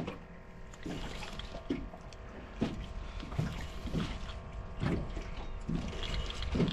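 Fishing reel being cranked while fighting a striped bass, a soft repeated sound about once a second, over wind and water noise and a faint steady hum.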